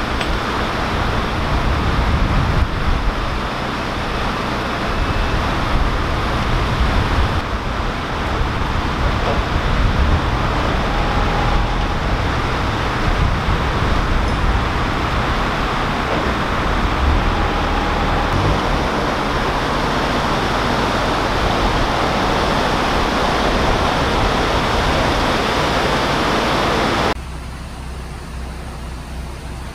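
A steady, loud rushing noise over the low, even rumble of a narrowboat's diesel engine running. Near the end the sound suddenly drops to a quieter, duller version of the same.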